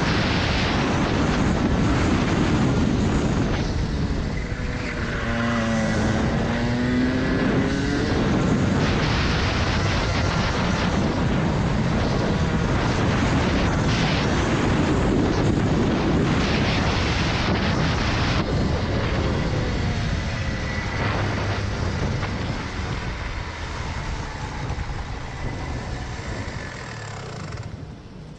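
Rotax Max Senior 125cc single-cylinder two-stroke kart engine running hard at speed. About five to seven seconds in the revs fall and climb again through a corner, and near the end the sound drops off sharply as the kart slows to a crawl.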